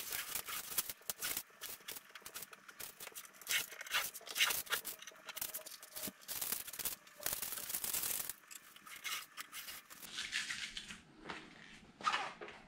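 Blue painter's tape being peeled off a car's paint and plastic tail light in a run of irregular crackling pulls, and scrunched up in the hands. Near the end a microfiber towel rubs across the tail light lens.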